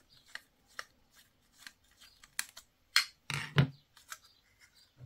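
Small screws and a screwdriver clicking and tapping while a plastic thermostat housing is handled: scattered light clicks, with a few louder knocks about three seconds in.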